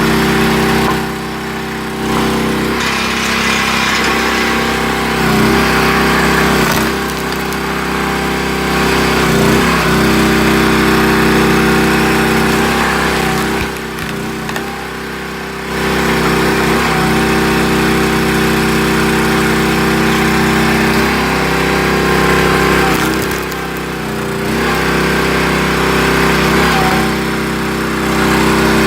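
Loncin single-cylinder engine of a hydraulic log splitter running steadily. Its note wavers briefly every few seconds and drops quieter for a moment three times, near the start, about halfway and toward the end, typical of the load changing as the splitter's ram is worked.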